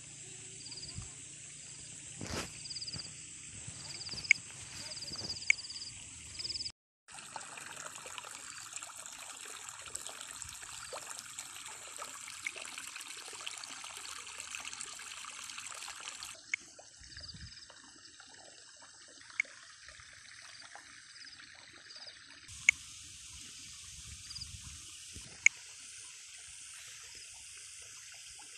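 Rice paddy ambience: a steady high hiss and trill, with water trickling. A few sharp clicks stand out above it.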